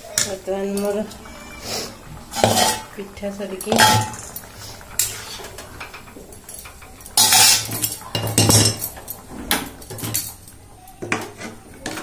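Metal spatula scraping and clanking against a metal cooking pan while curry is stirred, in irregular strokes, with a cluster of louder scrapes about seven to nine seconds in.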